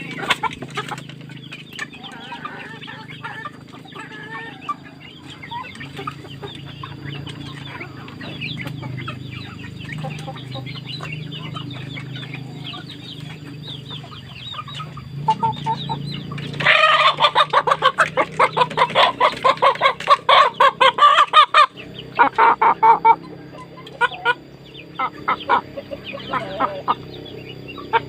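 Chickens clucking. About seventeen seconds in, one breaks into a loud, rapid cackle that lasts some five seconds before the clucking settles back down.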